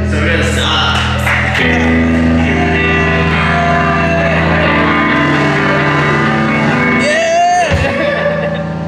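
Live rock band playing loud electric guitar and bass chords over drums, with a few sharp strikes in the first second and a half. About seven seconds in, a voice slides up and then down.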